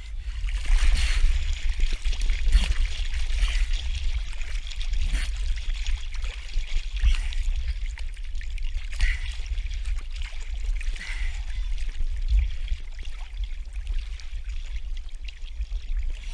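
Lake water sloshing and lapping against an action camera held at the surface as its wearer moves through the water, rising and falling unevenly, over a constant low rumble.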